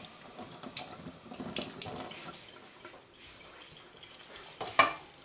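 Kitchen tap running into a sink, with light clatter of things under the water, followed near the end by a short, louder clatter of kitchenware.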